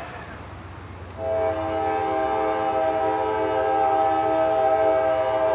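CSX freight locomotive's air horn sounding one long, steady chord of several notes, starting abruptly about a second in, over a low rumble from the approaching train.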